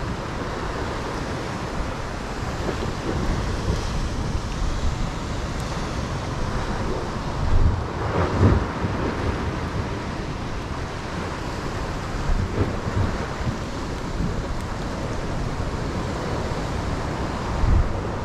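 Ocean surf washing against rocks, with wind rumbling on the microphone in gusts, strongest about eight seconds in and again near the end.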